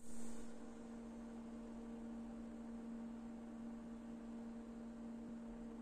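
Steady electrical hum: one constant low tone with a fainter, higher tone above it, over light hiss.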